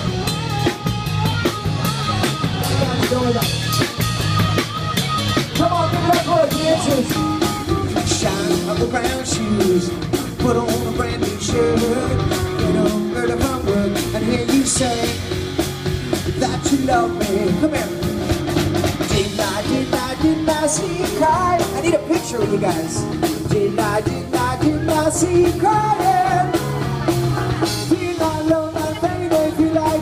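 Live rock band playing a song: a singer over electric guitar, bass guitar and drum kit.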